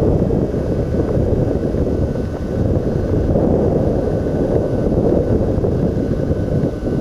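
Wind buffeting the camcorder microphone: a loud, steady, gusting rumble with no engine tone in it.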